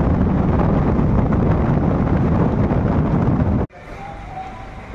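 Wind rushing over the microphone with the low rumble of a moving vehicle, heard from a vehicle in motion. It cuts off abruptly about three and a half seconds in to a much quieter background.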